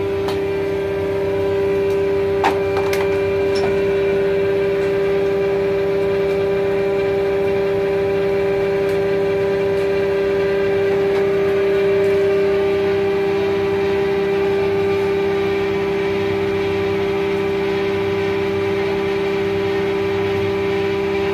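Old plastic injection moulding machine running, its hydraulic pump and motor giving a loud, steady whine, with one sharp click about two and a half seconds in.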